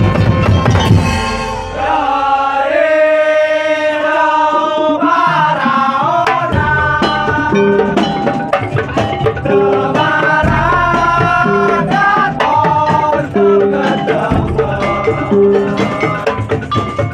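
Madurese daul (tong-tong) music: drums and struck percussion keep a steady beat under a sustained, wavering melody line.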